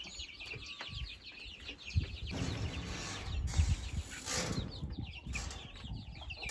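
A brood of young chicks peeping, many small calls overlapping in a dense chatter that is thickest over the first couple of seconds and thins out after, with a low rumble underneath.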